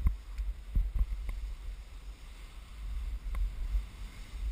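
Skis sliding through wet, slushy spring snow, with low wind rumble on the microphone and several sharp clicks, most of them in the first second and a half.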